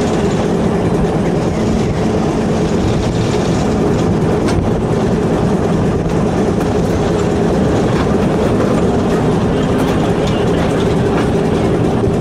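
Diesel shunting locomotive heard from inside its cab, its engine running steadily under way, with the wheels clicking over the rail joints.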